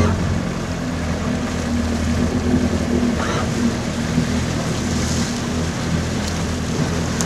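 Outboard motor running at a steady speed as the boat moves along, over a steady rush of wind and water.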